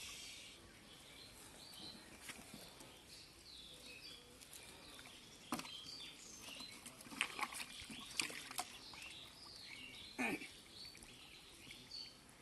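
Birds chirping in the background, with scattered wet slaps and squelches of hands digging through pond mud, clustered around the middle, and a short falling call about ten seconds in.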